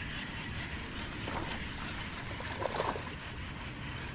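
Steady outdoor wind and water noise around a small fishing boat, with a couple of brief rustling noises about a second in and again near three seconds.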